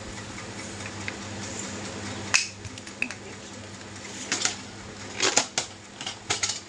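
A baby handling small objects on a windowsill: scattered knocks and clatters, several in quick succession from about halfway through, over a steady low hum.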